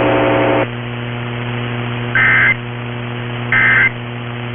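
Emergency Alert System end-of-message header: two short, identical bursts of harsh digital data squawk about 1.3 seconds apart, over a steady low hum and hiss. A steady buzzing tone cuts off about half a second in, before the first burst.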